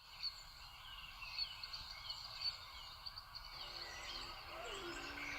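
Faint birdsong: many short chirps and whistled calls over a steady high hum, as in a forest soundscape. A few low held notes enter about three and a half seconds in.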